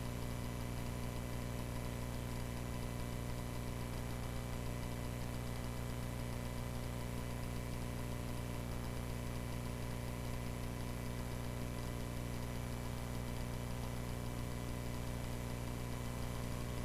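Cessna 140A's engine running at a steady, unchanging speed, a constant low drone with a hum of evenly spaced tones.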